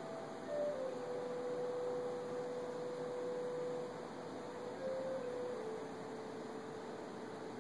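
Soft ambient background music: a slow melody of long, pure held notes that step downward in pitch and then rise a little near the end, over a steady hiss.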